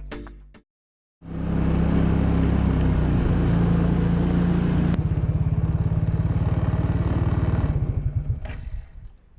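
An engine running steadily with a low, even hum for about seven seconds, then dying away near the end.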